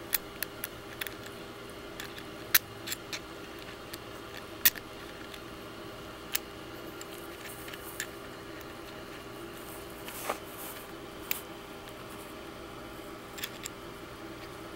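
Irregular sharp metal clicks and taps, a dozen or so, two of them louder, as a small tap is fitted into the jaws of a T-handle tap wrench. The wrench's steel parts and the tap shank knock together under the fingers.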